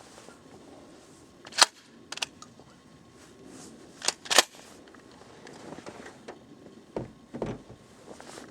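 A few sharp mechanical clicks and clacks of a Remington 870 pump-action shotgun being handled just after a shot, with a quick close pair about four seconds in. A couple of softer knocks follow near the end.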